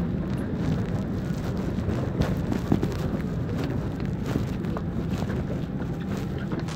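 Steady rushing hum of a parked airliner's cabin air ventilation during boarding, with scattered small clicks and knocks.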